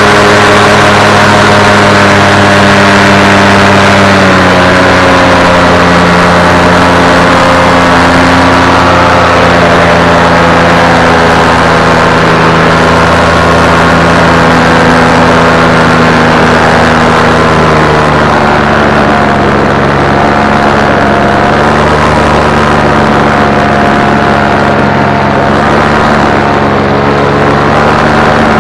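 Steady hum of a flying aircraft's motors and propellers, made of several droning tones whose pitch shifts slightly a few times.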